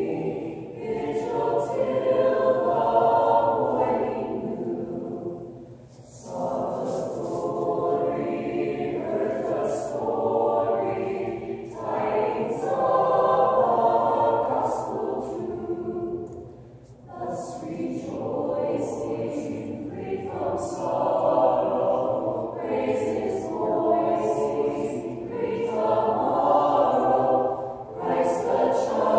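Mixed high school choir singing a Christmas carol a cappella, in long phrases with brief pauses about six and seventeen seconds in.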